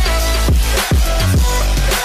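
Electronic backing music with a steady beat: deep bass kicks that drop in pitch, about two a second, under held synth tones.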